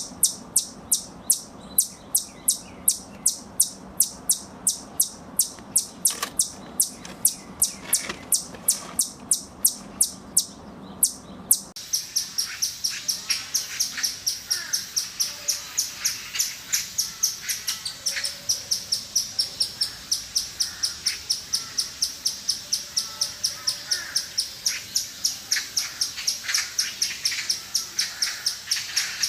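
Squirrel giving repeated alarm calls: short, high, sharp chirps, about three a second. Partway through the calls switch to a faster run of about four or five a second.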